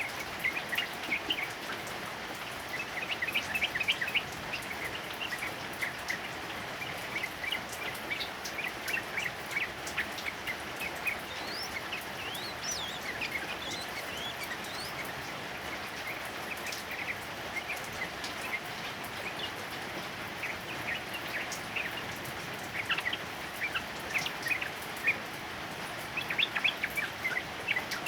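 Yellow-vented bulbul song, spells of quick chirpy notes with a few rising whistled glides, over the steady hiss of heavy rain.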